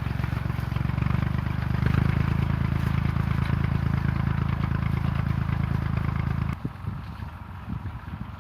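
Small Ferguson tractor engine running steadily at working speed, then dropping off abruptly to a much quieter sound about six and a half seconds in.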